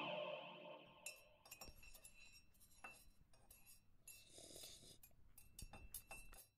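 Faint, scattered clinks of a spoon stirring in a cup. A music tail fades out in the first second.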